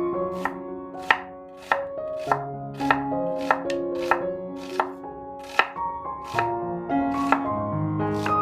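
Kitchen knife chopping food on a cutting board: about a dozen sharp, evenly paced strokes, roughly one every half second or so, slowing slightly near the end.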